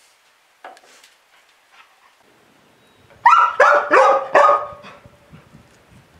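A dog barking four times in quick succession about three seconds in, preceded by a few faint clicks.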